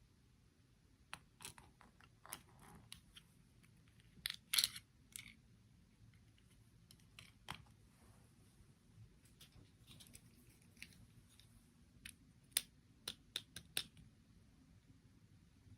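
Hands handling small plastic toy pieces: scattered light clicks, taps and short rustles, with the loudest cluster about four and a half seconds in and a quick run of clicks near the end.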